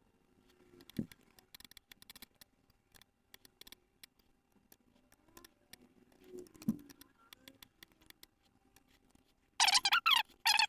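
Light, scattered clicks and taps with two soft thumps, from handling the small laptop during testing. Near the end comes a much louder, choppy burst of sound.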